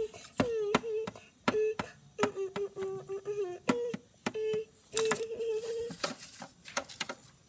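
A child humming a tune in short held notes that step up and down in pitch, with frequent sharp knocks and taps from plastic dolls being handled and moved about.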